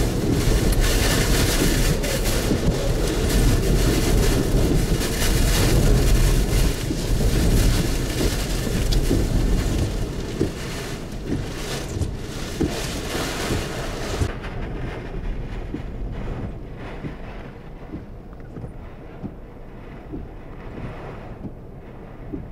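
Hurricane-force wind blasting against the microphone in driving rain. The wind is loudest for the first ten seconds or so, then eases. About fourteen seconds in the hiss cuts out and the rest is duller and quieter.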